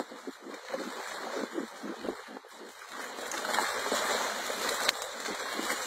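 Fish thrashing and splashing in a cast net as it is dragged through shallow water onto the beach, a busy irregular splashing that grows louder about halfway through.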